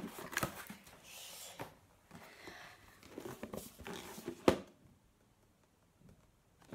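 Cardboard gift box being pulled out of its shipping carton and handled: rustling and scraping of cardboard with small clicks, and one sharp knock about four and a half seconds in.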